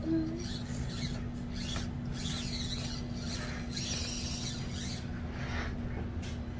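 RC rock crawler's electric motor and gear drivetrain whirring in uneven spurts as the truck crawls, with a steady low hum underneath.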